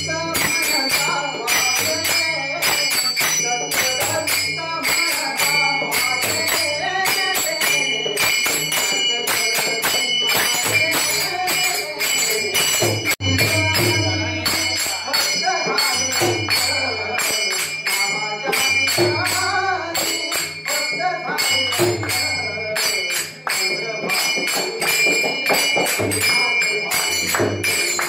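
Devotees singing a bhajan: voices over a steady beat of jingling hand percussion and a low repeating pulse.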